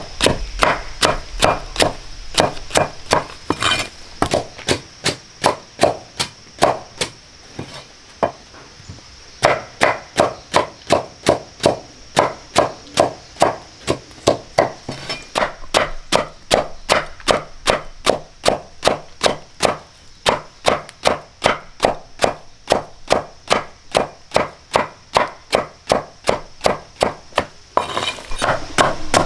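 Steady rhythmic chopping, a blade striking about two to three times a second, with a brief lull around eight seconds in.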